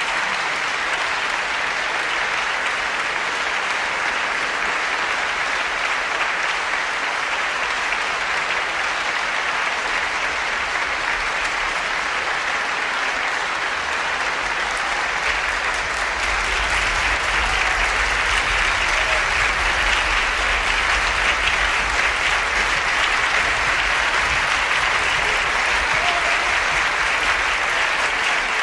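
Audience applauding steadily, growing louder a little past halfway through.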